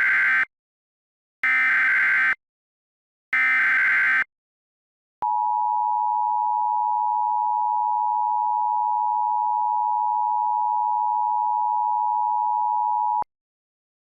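Emergency Alert System SAME header: three bursts of warbling digital data tones about a second each, followed by the EAS two-tone attention signal, a steady dual tone held for about eight seconds that cuts off sharply. This is the opening of a Required Monthly Test alert.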